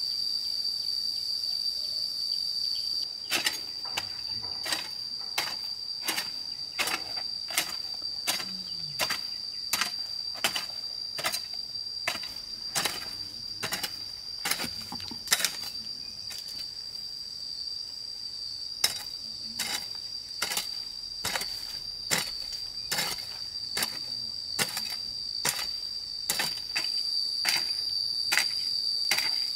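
Steady high-pitched insect drone, with sharp, irregular taps or knocks about once or twice a second starting about three seconds in.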